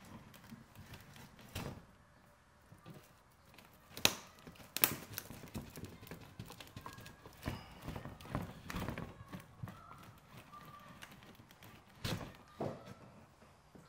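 Irregular knocks, taps and crackles from stiff birch bark being handled and pressed by hand, with the two sharpest knocks close together about four seconds in.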